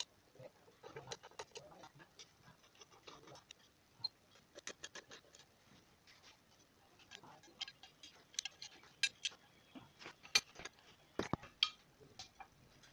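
Irregular light clicks and taps of hard plastic tool-housing parts being handled and fitted together by hand, with a few sharper clicks near the end.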